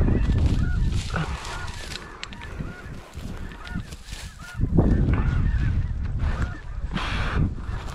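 Geese honking in short calls repeated every half second or so, over a low rumbling noise that eases off in the middle and comes back from about five seconds in.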